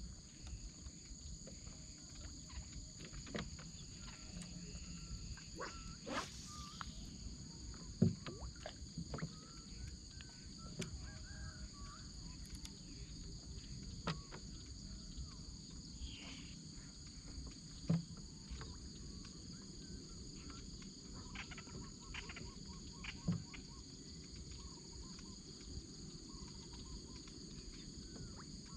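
Steady high-pitched drone of insects, with scattered soft knocks and taps and a brief rustle about six seconds in.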